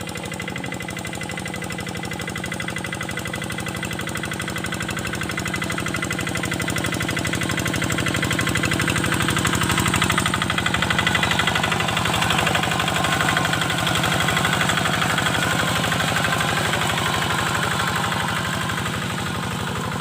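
A Kubota single-cylinder diesel engine on a hand tractor, running steadily with a fast chugging beat. It grows louder over the first half, then holds.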